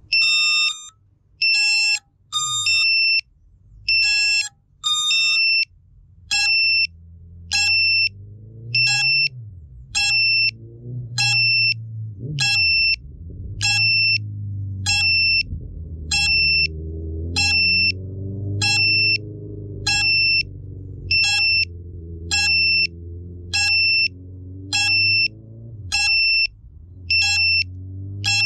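FPV quadcopter's onboard beeper sounding a long run of loud, high-pitched electronic beeps. After a few irregular beeps it settles into a steady beep about every three-quarters of a second, over a low hum that rises and falls in pitch.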